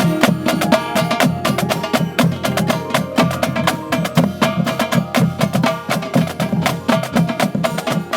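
Marching band percussion playing a fast, busy passage: rapid sharp strikes with pitched mallet notes among them.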